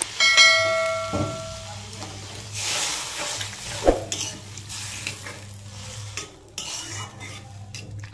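A metal spatula stirring and scraping potatoes and tomatoes in a watery curry in an aluminium kadai, the pan sizzling. Near the start a sharp metal clang rings on for about a second and a half, with a single knock about four seconds in.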